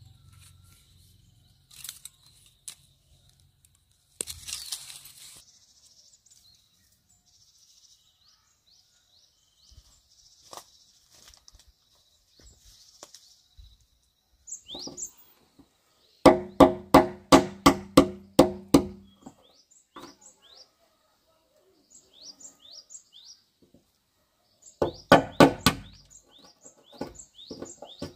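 A rapid run of about eight sharp knocks, roughly three a second, each with a short ringing tone, and a second shorter run of knocks near the end. Small birds chirp in short high notes in between.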